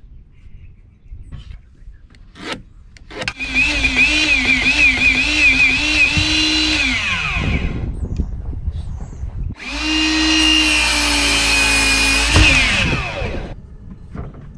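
A DeWalt sliding miter saw makes two cuts through a block of Port Orford cedar, each lasting about four seconds: the motor spins up, its pitch wavers as the blade bites during the first cut, and it winds down with a falling pitch after each. A few light knocks come before the first cut.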